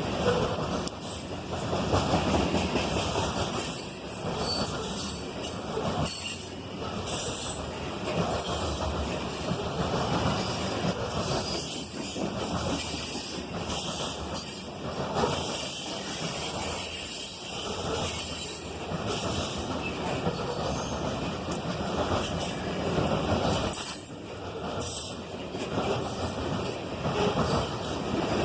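Loaded freight train of grain cars rolling past: a continuous rumble and rattle of steel wheels on the rails that swells and dips without stopping.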